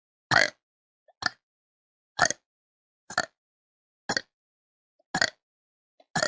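A young woman burping in a rapid series of short burps, about one a second, with silence between each.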